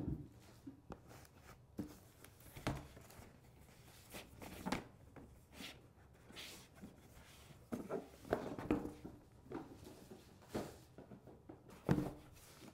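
A cardboard box and the carrying case inside it being handled. There are scattered light knocks, scrapes and rubs as the lid comes off and the case is lifted out of the box.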